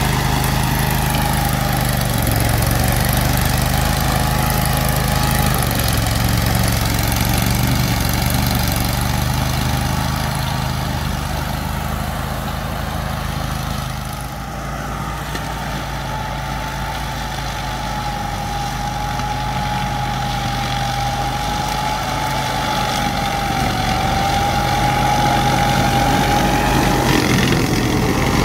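Grillo Climber 10 AWD 27 ride-on brush mower's engine running steadily as it cuts through tall grass and weeds, with a steady high whine over the engine. It is a little quieter from about halfway.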